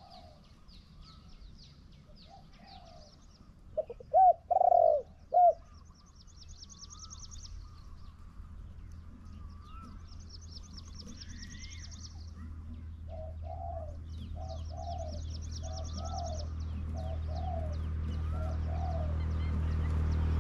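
Spotted doves cooing: a loud three-note coo about four seconds in, then a run of six fainter, evenly spaced coos later. Small songbirds trill high above, and a low vehicle rumble builds near the end.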